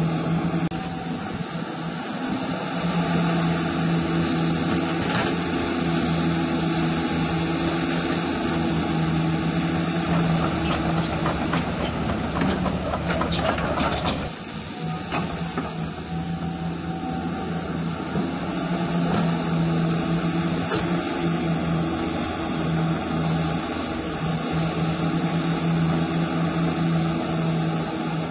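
Electric hydraulic pump of an RC CAT 336 hydraulic excavator model running as a steady hum that wavers and briefly drops as the boom, arm and bucket are worked. Roughly halfway through there are a few seconds of louder scraping and crackling from the bucket working the soil.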